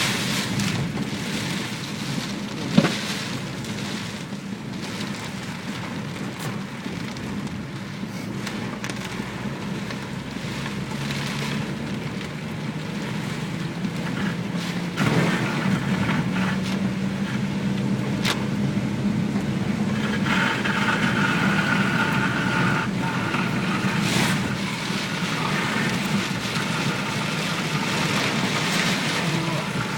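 Steady rushing noise of a typhoon-swollen river and rain, with a low steady hum underneath and a single sharp knock about three seconds in.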